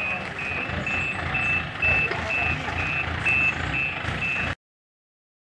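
A truck's reversing alarm beeping at one high pitch, about two beeps a second, over the low rumble of its engine running; the sound stops abruptly about four and a half seconds in.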